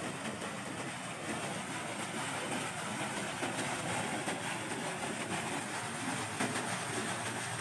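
Pond aerator churning the water surface, a steady splashing and bubbling.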